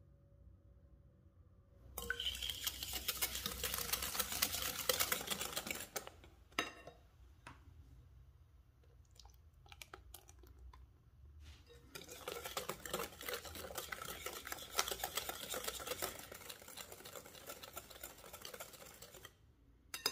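Wire whisk beating egg and sugar in a glass bowl, its metal wires rattling quickly against the glass in two long spells, the second as melted butter is mixed in. Between the spells only a few light taps, and a single clink near the end.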